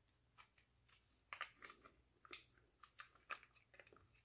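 A dozen or so faint, irregular clicks and taps of small metal and polymer parts and hand tools as the trigger housing is worked out of a Canik TP9SFX pistol's frame.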